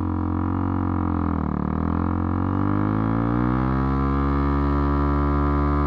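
KTM RC390's single-cylinder engine held at high revs during a stationary burnout to wear down the rear tyre. The revs dip briefly about a second and a half in, then climb slowly and hold.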